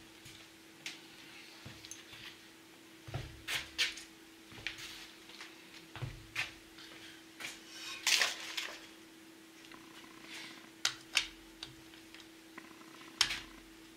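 Scattered metallic clinks and clicks of a wrench and socket on a Ford 8N tractor engine's cylinder head bolts as they are torqued down, with a faint steady hum underneath.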